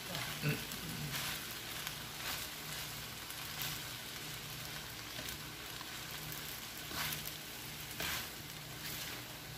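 Paella rice with shrimp and squid sizzling in a nonstick wok while a spatula stirs it, with short scrapes of the spatula against the pan every second or so.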